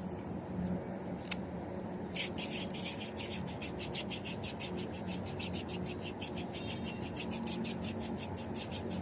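Spinning reel being cranked to retrieve the lure, its mechanism ticking evenly at about six ticks a second from about two seconds in, over a steady low background noise.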